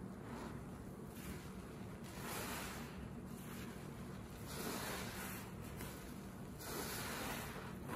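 Porous bath sponge squeezed by hand in soapy rinse water: wet squishing of water and suds pressed through the sponge, in several swells about one to two seconds apart.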